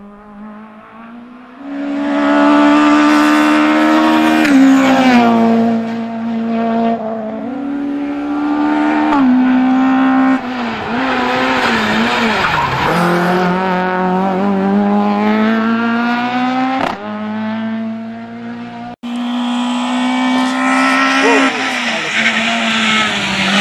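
Renault Clio Maxi Kit Car rally engine running hard, held at high revs with its pitch stepping up and down through gear changes and dropping away for corners. Near the end the tyres squeal and skid.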